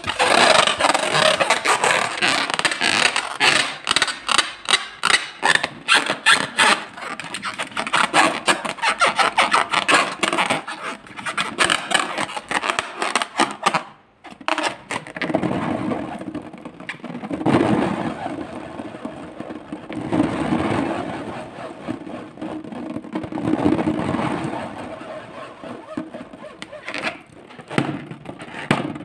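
Fingers rubbing and squeezing a latex balloon, a fast run of squeaky, crackly rubbing noises. After a short break about halfway, the rubbing comes in slower, longer strokes about every three seconds.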